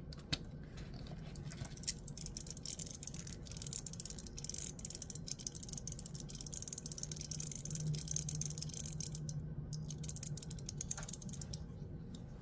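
Gao Studio Magnetic Master 2.0 haptic coin being worked, its spring-loaded 3 mm detent balls, likely the Teflon set just fitted, clicking in a fast, dense ratcheting run that stops about a second before the end.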